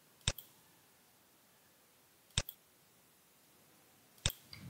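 Computer mouse button clicked three times, about two seconds apart. Each is a sharp click followed at once by a fainter one.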